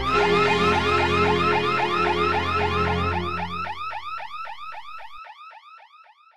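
Electronic alarm sounding: a fast, repeating warbling chirp, several rising sweeps a second, over low held tones, fading out toward the end.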